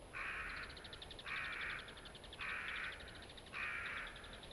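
A crow cawing four times, evenly spaced about a second apart, over a steady, fast, high-pitched chirring.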